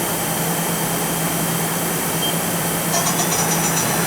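Mori Seiki ZT-1500Y CNC turning center's spindle 2, with its 3-jaw chuck, spinning at about 1,800 to 2,200 RPM: a steady machine hum. A brief high pulsing sound comes in about three seconds in.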